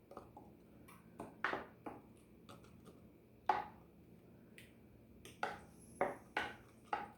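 A kitchen utensil tapping and scraping against a baking pan while salsa verde is spread across the bottom, heard as a dozen or so light, irregular taps over several seconds.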